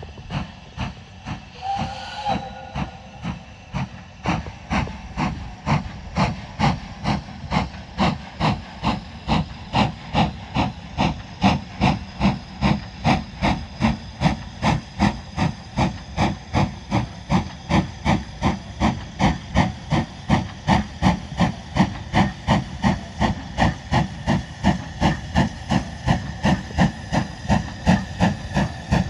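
BR Standard Class 5MT two-cylinder steam locomotive 73082 "Camelot" pulling away, its exhaust beats steadily quickening as it gathers speed. A short whistle sounds about two seconds in.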